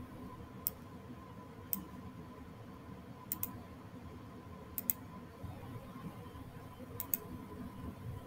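Computer mouse clicking: two single clicks, then three quick double clicks, over a faint steady high hum.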